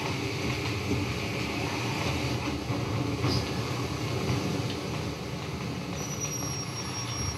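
Experimental noise soundtrack: a dense, steady rumbling texture with scattered clicks, joined about six seconds in by thin, high steady tones.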